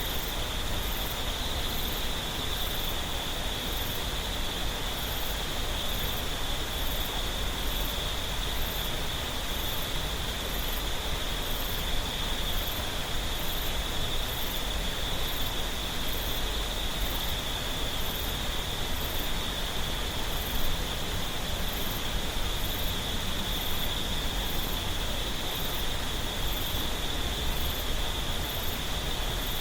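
Mountain stream water running steadily over rocks, with a steady high insect hum above it and faint very high chirps repeating about once a second.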